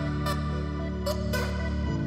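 Background music with sustained low chords and a beat; the chord changes near the end.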